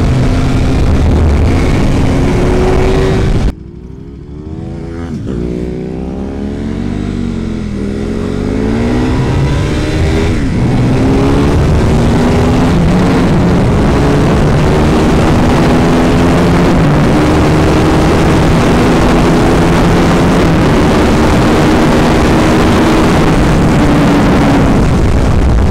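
Sports motorcycle engines being run hard. After a sudden cut about three and a half seconds in, bikes go by with their engine pitch sweeping down and up. From about ten seconds the engine pulls through the gears, its pitch climbing in repeated steps over a steady rush of wind noise.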